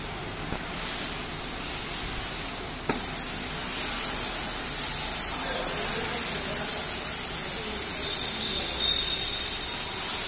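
260 W CO2 laser cutting machine running with a steady hiss of air. A sharp click comes about three seconds in, after which the hiss is louder.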